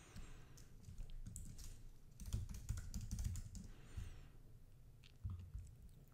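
Typing on a computer keyboard: short, irregular runs of keystrokes, busiest from about two to three and a half seconds in.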